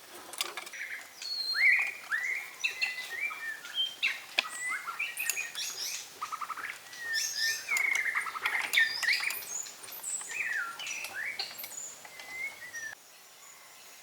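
Many short, high-pitched animal chirps and squeals, each sliding in pitch, with scattered clicks among them; they stop abruptly about 13 seconds in, leaving only a faint steady background.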